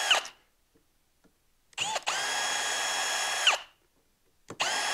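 Cordless drill with a Torx bit backing out small screws. Its motor whine stops just after the start, spins up again about two seconds in, runs steadily for about a second and a half and winds down, then starts again near the end.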